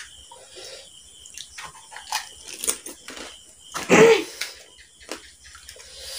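Two people eating puchkas fast: crisp puri shells crunching and cracking as they are bitten, with wet chewing and slurping of the filled shells. A short, loud vocal noise comes about four seconds in.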